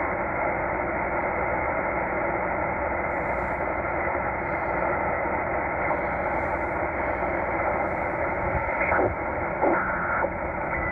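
Shortwave static hissing from a Tecsun H-501x portable receiver in upper sideband mode as it is tuned up the 19-metre band through empty frequencies. A few brief crackles and a short whistle come near the end.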